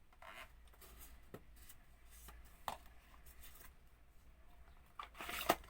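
Hands handling a gimbal selfie-stick tripod and its parts: scattered light plastic clicks and rustles, with a sharper click midway and a longer, louder rustle near the end.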